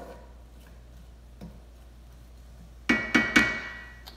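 Three quick metallic knocks about three seconds in, each leaving a ringing tone: a cooking utensil tapped against the frying pan on the stove. Another knock follows near the end.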